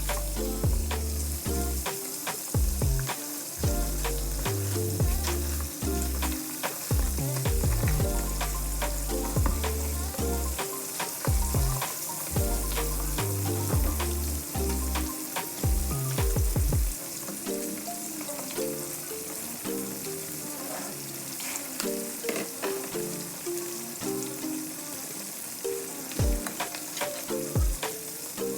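Chop suey vegetables and chicken liver sizzling in a frying pan while being stirred, with frequent sharp clicks of the utensil against the pan. Background music plays alongside, its bass line dropping out a little over halfway through.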